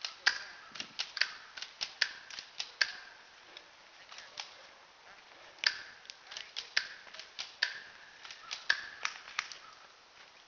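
Irregular sharp clicks and snaps, a few a second, with a couple of short pauses.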